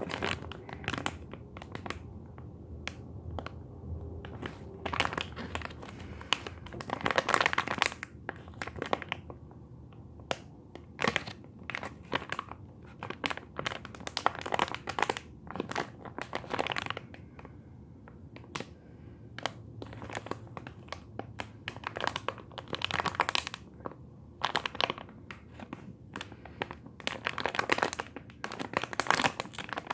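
Clear plastic packaging crinkling in irregular crackles as a foam pig squishy is squeezed through its bag by hand.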